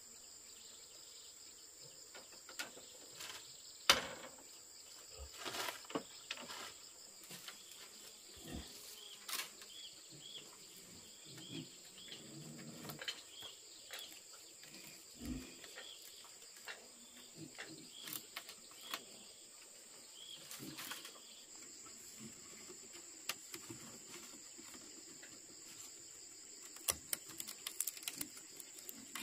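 Steady high-pitched insect trill, probably crickets, with scattered knocks and taps over it. The loudest is a sharp knock about four seconds in. A run of faint short chirps comes in the middle.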